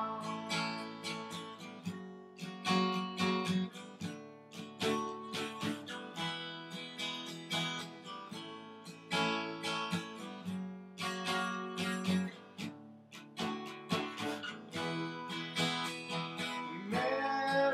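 Acoustic guitar strummed steadily in a repeating chord pattern, an instrumental break between sung choruses.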